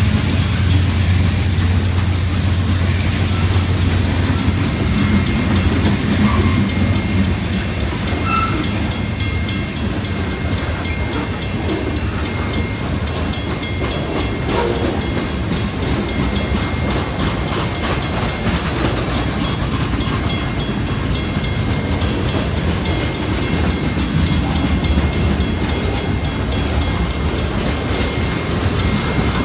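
Freight cars of a long Pan Am Railways train rolling steadily past a grade crossing: a continuous deep rumble of steel wheels on the rails, heaviest in the first few seconds.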